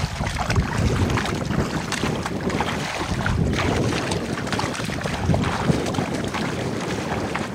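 Several people wading through shallow, muddy paddy water, their steps splashing and sloshing irregularly, with wind buffeting the microphone.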